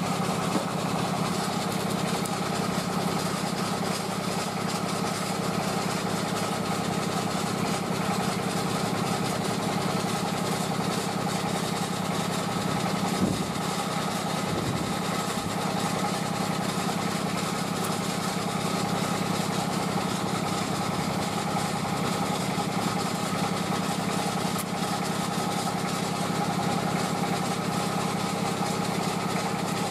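The engine of a street rice-puffing machine running steadily with an even pulse, with one short thump about halfway through.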